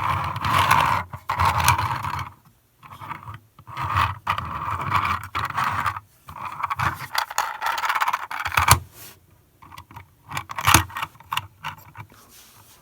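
Irregular scraping, rustling and clicking of hard objects being handled close to the microphone, in bursts with short pauses, thinning out near the end.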